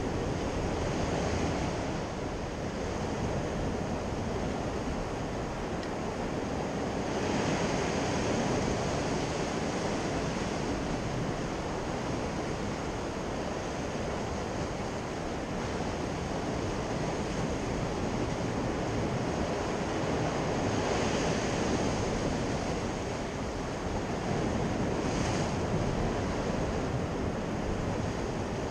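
Sea surf washing and breaking against shoreline rocks, a continuous rushing wash that surges louder three times.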